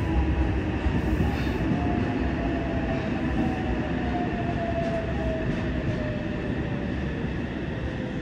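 Yokohama Municipal Subway 3000R train's Mitsubishi IGBT-VVVF inverter and traction motors braking into a station, heard from inside the car: a motor whine falling steadily in pitch over the steady rumble of wheels on rail, slowly getting quieter.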